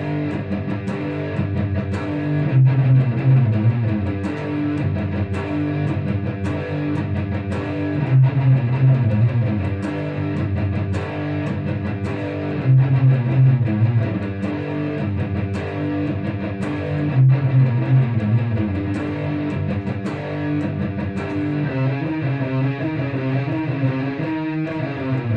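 Electric guitar playing heavy and thrash metal riffs: a repeating riff whose loud low notes come round about every five seconds, with quick picked notes between.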